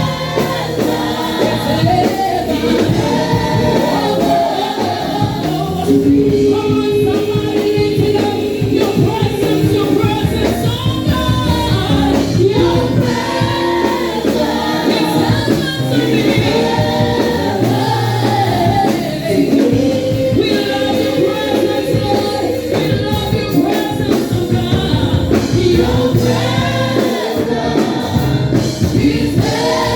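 Church praise team singing a gospel worship song, several voices together with band accompaniment.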